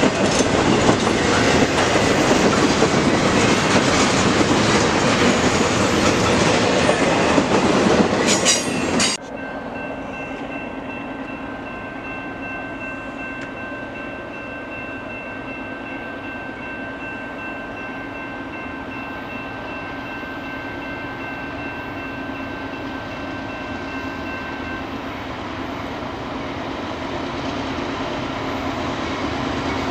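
Double-stack container freight train rolling past close by, its wheels clattering over the rails, for about nine seconds before the sound cuts off suddenly. A quieter, steady train rumble with a low hum and a faint high steady tone follows, and it grows louder toward the end as another train approaches.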